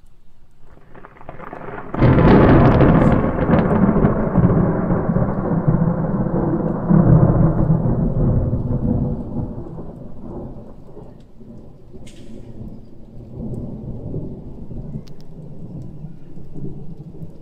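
A clap of thunder: a sudden loud crack about two seconds in, rolling on and slowly fading over the next several seconds into a low, continuing rumble.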